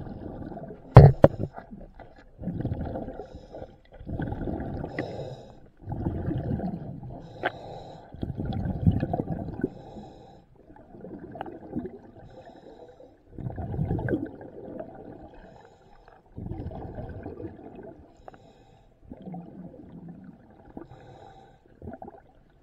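Diver breathing underwater through a regulator: exhaled bubbles rush past the microphone in bursts every couple of seconds, with short pauses between breaths. There is one sharp knock about a second in.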